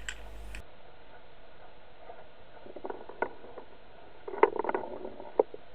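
Sound picked up underwater by a fishing-line camera: a faint muffled hiss with scattered small clicks and knocks, a single one about three seconds in and a quick cluster about four and a half seconds in.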